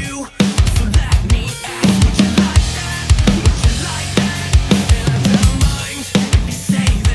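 Drum kit played in a driving groove, with kick drum, snare and cymbals, as recorded through a Behringer BC1200 drum microphone set.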